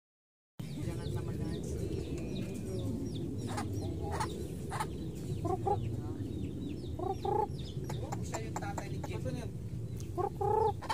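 Chickens clucking, with many short high chirps throughout and a few louder calls about halfway through and near the end, over a steady low rumble. The sound cuts out completely for the first half second.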